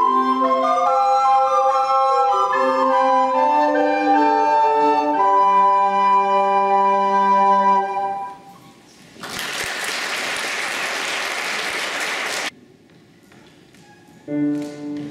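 Recorder ensemble playing a piece in several parts, ending on a held chord about eight seconds in. Audience applause follows for about three seconds and cuts off abruptly. Near the end, strummed acoustic guitar and piano begin a new piece.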